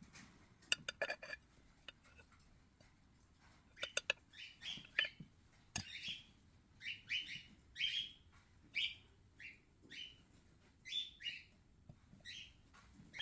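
A bird chirping over and over, short falling calls in quick runs through most of the stretch. A few light clicks come near the start, and a single sharp knock comes about six seconds in.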